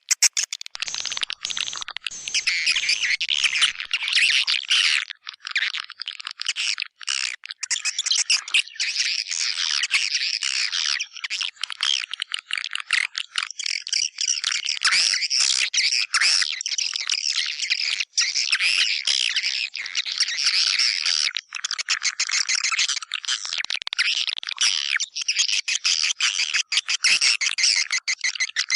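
Swiftlet lure sound: a recording of white-nest swiftlets chirping and twittering densely and without let-up, the kind of call track played to draw swiftlets into a nesting house.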